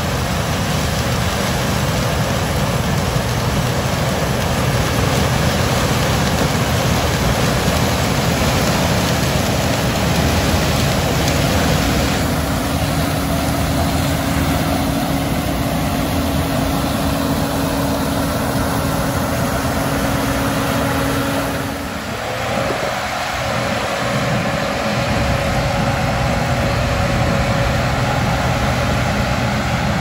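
Case IH 2388 combine running steadily while harvesting corn: engine hum with the threshing and corn-head machinery. There is a brief drop in level about three quarters of the way through.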